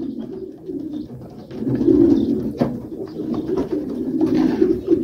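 Breeding pigeons cooing in their nest boxes, several birds at once in overlapping low coos, the courting of newly mated pairs. A few light knocks sound among them, one about halfway through.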